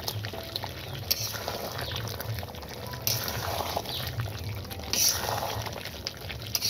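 Duck curry sizzling and bubbling in an iron wok while a metal spatula stirs it, with occasional scrapes and clicks of the spatula against the pan.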